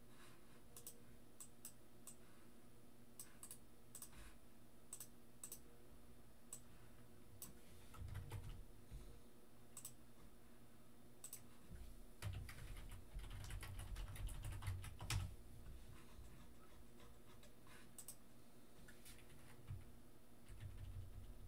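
Typing on a Logitech computer keyboard: scattered faint key clicks, growing into a denser run of keystrokes with a few dull thumps a little past halfway.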